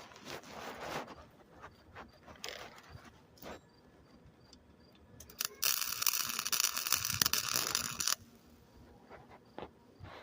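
A short burst of electric welding, the crackle of a wire-feed welder laying a bead for about two and a half seconds in the middle and cutting off sharply. Before it come light scrapes and clicks of metal parts being handled.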